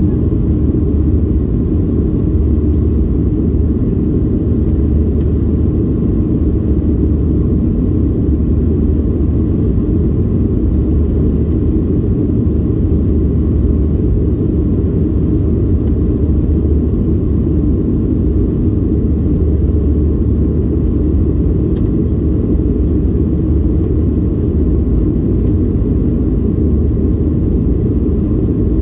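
Cabin noise inside a Boeing 737-800 in its climb after takeoff: its CFM56-7B turbofan engines and the airflow make a steady, deep rumble.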